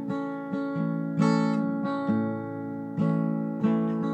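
Acoustic guitar being strummed slowly: a new chord stroke every half second to a second, each left ringing.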